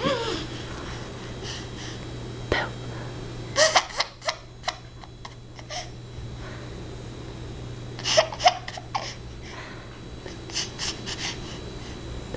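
A baby making short noises in scattered bursts: giggles, squeals and babbling sounds, over a steady low hum.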